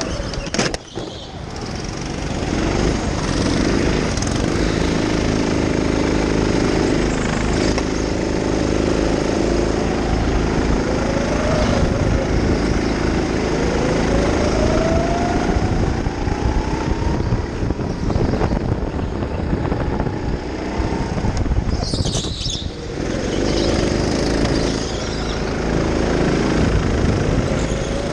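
Go-kart running around an indoor track, its motor's pitch rising as it picks up speed and falling back, with a brief lull about a second in and another about three quarters of the way through.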